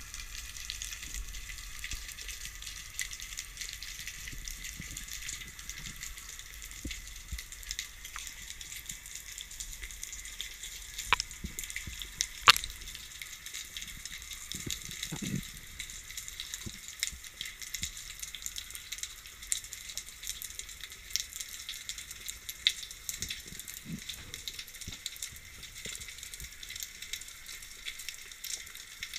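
Underwater ambience: a continuous fizzing crackle of tiny snaps over a rocky reef, with two sharper clicks a little before the middle and a few soft low thumps.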